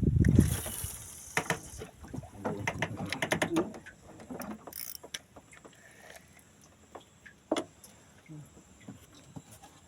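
Clicking and ratcheting of a fishing reel being worked, with scattered knocks of handling. A loud low bump at the very start, then clicks that cluster in the first few seconds and thin out.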